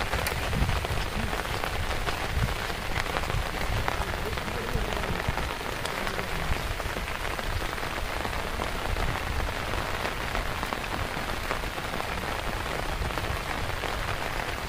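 Heavy rain pouring steadily on floodwater and on an umbrella close by: an even hiss with many small drop hits.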